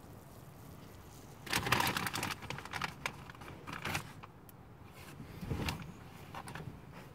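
Bag of popcorn being handled, rustling and crinkling in several short bursts, the biggest about a second and a half in, with a few light clicks.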